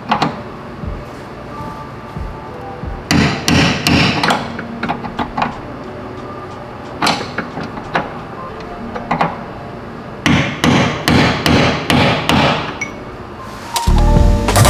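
A hammer striking metal in bunches of quick blows with short pauses between, tapping a tight-fitting bolt through a car's rear lower control arm mount.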